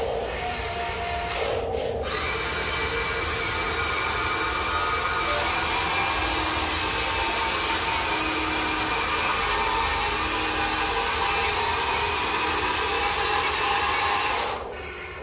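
Small electric motors and plastic gearboxes of a toy RC excavator whining steadily as the arm works, with a short break about two seconds in. The whine stops near the end.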